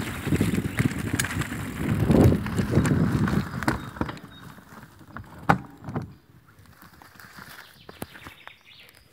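Mountain bike ridden fast on a dirt singletrack: tyre rumble, rattling clicks and wind on the microphone, dropping to much quieter about four seconds in, with two sharp knocks shortly after.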